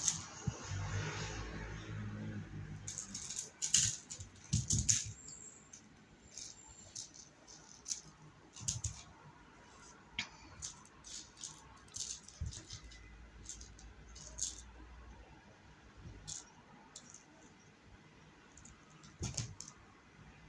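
Irregular light clicks and rattles from a kitten batting, carrying and pouncing on a small toy mouse, thickest a few seconds in and again near the end.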